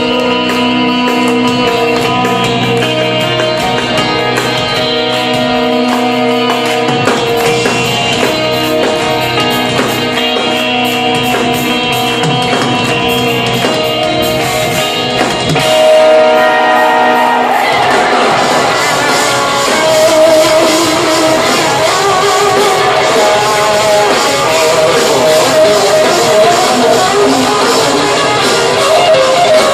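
Instrumental progressive metal played live on eight-string electric guitars with drums. About 18 seconds in, the music turns denser and louder.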